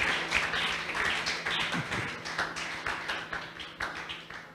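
Scattered hand clapping from a small congregation, irregular and fading away toward the end, over a faint steady low hum.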